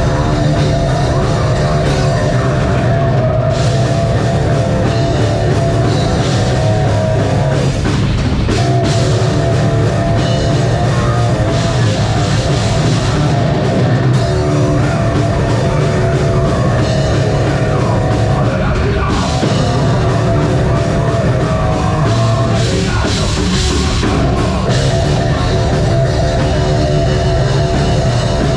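Metal band playing live: distorted guitars, bass and a pounding drum kit in a loud, steady heavy riff.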